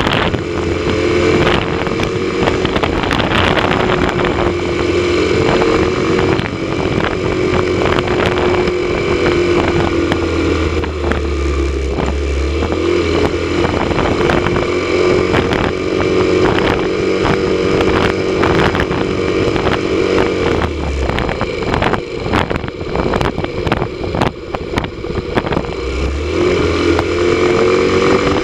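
Motorcycle engine running at road speed, with wind buffeting the microphone. The engine note dips and climbs again a few times as the throttle is eased and reopened, rising near the end.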